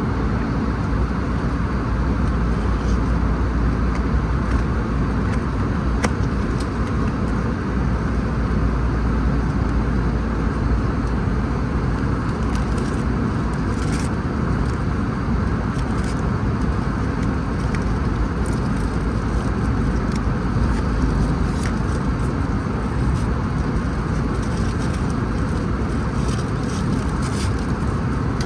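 Airbus A320neo cabin noise: a steady jet-engine and airflow rush with a deep low rumble, heard from inside the cabin, with a few faint ticks.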